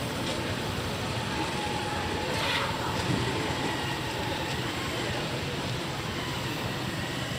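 Street noise with a motor vehicle's engine running nearby, a steady hum under an even wash of traffic noise.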